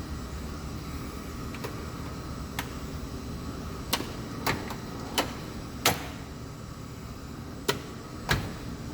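A series of about eight sharp clicks and knocks, spaced irregularly, over a steady low hum.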